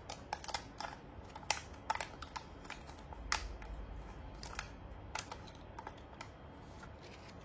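Faint, irregular light clicks and taps, a few a second, thinning out near the end.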